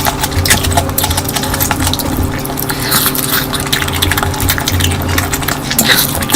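Wet eating sounds of curry: many small sticky clicks and smacks from chewing and mixing, over a steady low hum.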